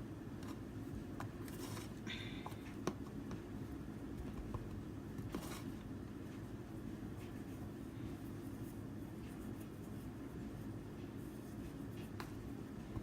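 Faint rustling and scattered light taps from chicken pieces being turned and shaken in a bowl of flour, over a steady low hum.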